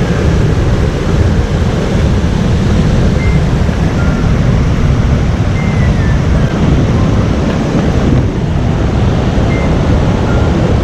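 Wind buffeting the microphone over the steady rush of river rapids.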